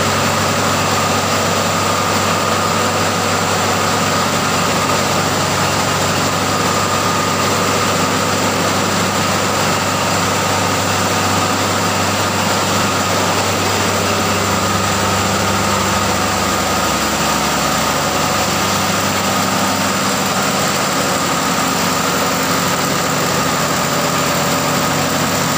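Diesel machinery running in a ship's engine room: a loud, steady drone made of a low hum and a constant high whine.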